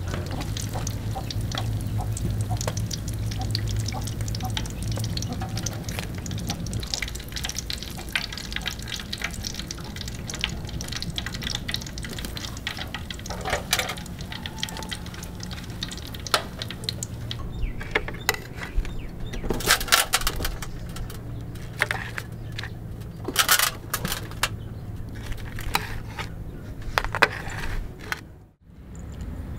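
Cooking sounds from a wok of hot frying oil, with dense crackling over a steady low hum in the first several seconds. Later, sharper clicks and taps of metal tongs and handling as fried mantis shrimp are lifted out and set down.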